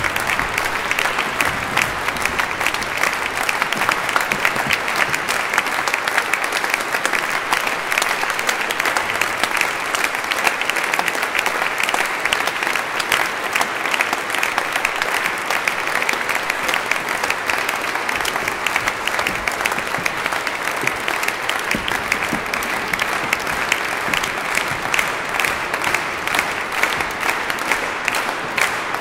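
Audience applauding: dense, steady clapping from a concert crowd.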